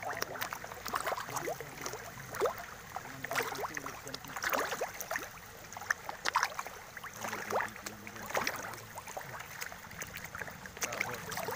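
Pond water splashing and plopping as fish stir the surface: short, irregular splashes and bubbly pops, a few a second.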